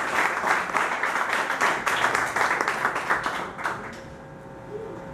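Audience applauding, the clapping dying away about four seconds in, after which a faint steady tone hangs in the hall.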